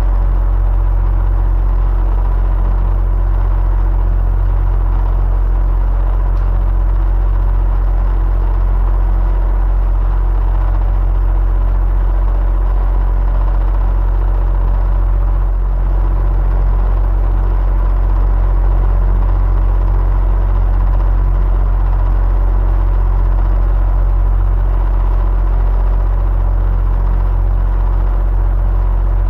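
Electric fan running steadily: a constant deep hum with a faint, even whir and a thin steady whine above it.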